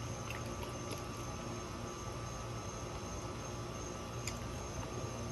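Steady background hum and hiss, with a few faint clicks near the start and about four seconds in.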